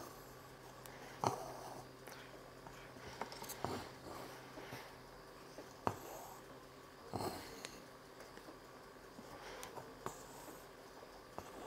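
Embroidery needle popping through fabric held taut in a wooden hoop, with the thread drawn through after each stitch: a sharp tap followed by a soft rasping pull, repeated every couple of seconds.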